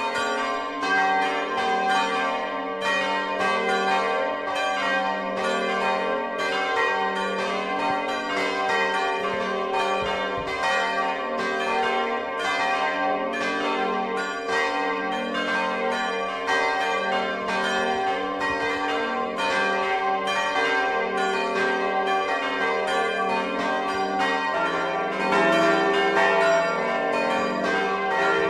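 Several church bells ringing together in a full peal, their strokes overlapping without a break. About 24 seconds in, a deeper note comes in and the peal grows louder.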